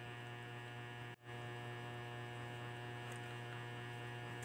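Steady electrical mains hum with many overtones, which cuts out for an instant about a second in.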